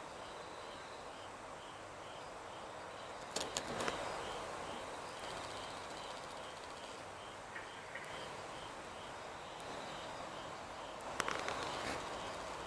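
A steady hiss with an insect chirping in regular, evenly spaced pulses, about three a second. Two short clusters of sharp clicks come about three seconds in and near the end.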